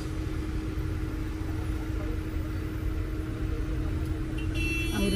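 Car cabin noise from inside a car moving slowly in city traffic: a steady low rumble of engine and road with a constant hum. Near the end a brief high-pitched tone sounds from outside.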